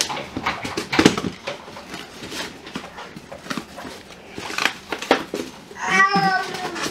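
Cardboard shipping box being opened by hand: taped flaps pulled apart and folded back, a run of rips, scrapes and knocks, the sharpest about a second in. About six seconds in, a young child gives a brief high, wavering whine.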